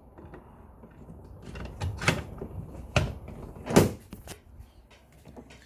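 Trolling motor mount knocking into a metal quick-release bracket as the motor is seated and its locking pin pushed through: three sharp clunks over about two seconds, the last the loudest, with quieter handling rattles between.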